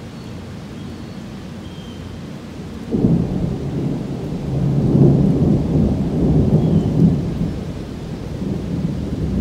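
Thunder: a sudden clap about three seconds in that rolls into a long, deep rumble, swelling and easing, over a steady hiss of heavy rain.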